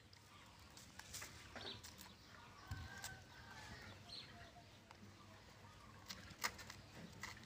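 Near silence: faint outdoor ambience with a few soft clicks and faint distant bird calls.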